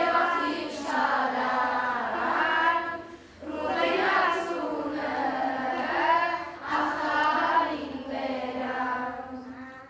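A group of children singing together on stage without speech, in sung phrases of about three seconds with short breaks between them.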